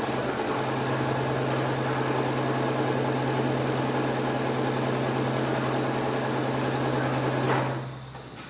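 Electric sewing machine running at a steady speed as it stitches through the quilt layers, a constant motor hum with the needle's rapid chatter over it. It stops near the end.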